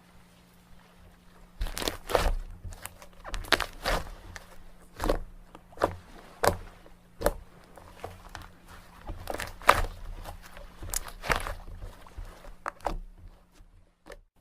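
Slime being squeezed and poked by hand, making irregular crackling pops and crunches, several a second at times, that stop about a second before the end.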